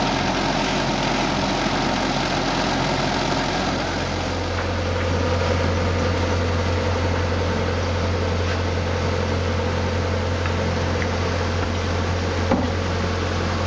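Towable '185' air compressor's engine running with a steady low drone that grows a little stronger about four seconds in. A single sharp knock comes near the end.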